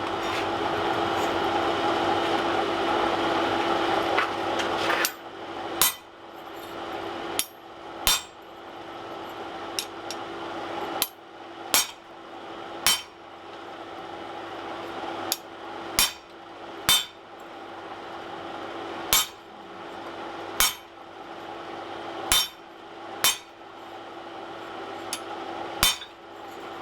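Hand hammer striking hot steel on tooling at an anvil: about eighteen separate ringing blows, unevenly spaced and often in pairs, starting about five seconds in, as a newly forged swage or header is tried out. A steady hum runs underneath, loudest before the hammering begins.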